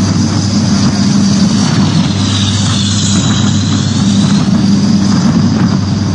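Aircraft engines running in flight, heard from an open cargo ramp: a steady low drone with rushing air and a high whine that dips in pitch and rises again around the middle.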